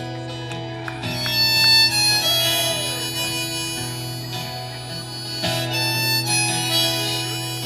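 Live band playing an instrumental break between verses: a harmonica carries the melody with held and bending notes over strummed acoustic guitar, bass, keyboard and drums.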